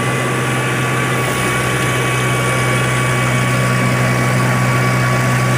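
Diesel engine of heavy road-paving machinery running steadily, a constant low hum.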